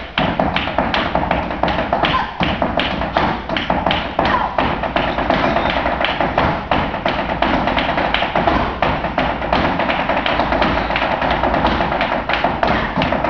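Flamenco palmas: steady rhythmic hand clapping, about four claps a second, mixed with the taps and stamps of a flamenco dancer's shoes.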